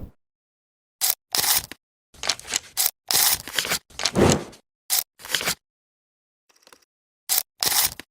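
Film burn transition sound effects: a string of about a dozen short, sharp bursts of scraping noise at irregular intervals, with dead silence between them.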